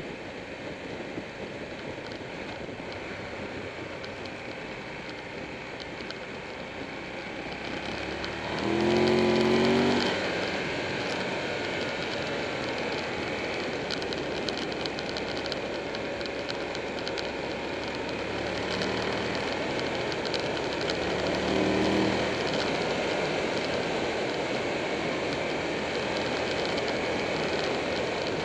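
Buell 1125R V-twin motorcycle on the move: steady wind rush and road noise over the camera, with the engine note under it. The engine swells clearly louder for about a second and a half around nine seconds in, and briefly again around twenty-two seconds.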